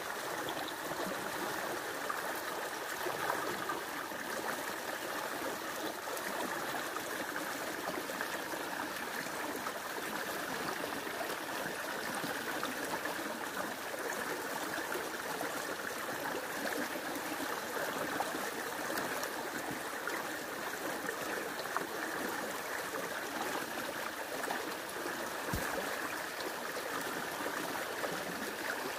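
A fast river rushing steadily, its current breaking into ripples around branches trailing in the water.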